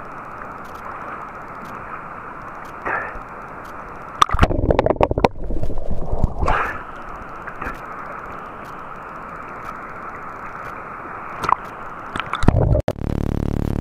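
River water sloshing and gurgling against a waterproof camera housing held at the surface, heard muffled through the housing. Louder splashes come about four to five seconds in and again at six and a half. Near the end the sound gives way to a steady hum.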